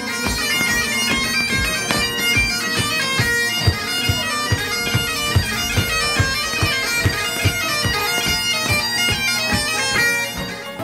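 Bagpipes played live: a steady drone under a fast, busy chanter melody, with regular low thumps keeping time.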